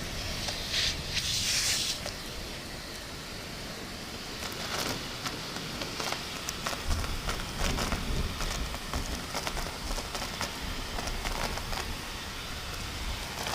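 Heavy rain falling, a steady hiss dotted with crackling drops, with a low rumble about seven seconds in.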